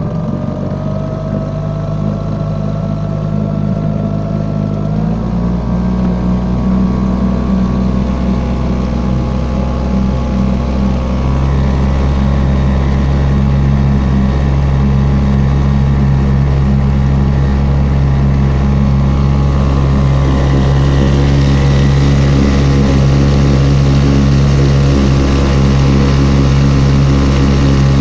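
Sharmax 4 hp petrol outboard motor running under way, driving an inflatable boat. The engine speeds up in steps, about five seconds in and again around eleven seconds, then holds a steady, louder drone.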